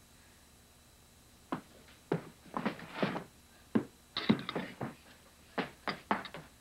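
A run of irregular knocks, thumps and clatters against a dining table and its dishes, as in a physical struggle. It starts about a second and a half in, after near silence.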